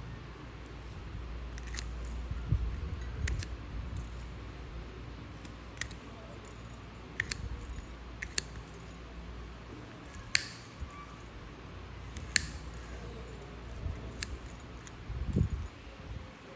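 Nail nippers snipping through a thick, crumbling toenail: sharp clicks at irregular intervals of one to two seconds, over a low steady hum. A dull thump comes near the end.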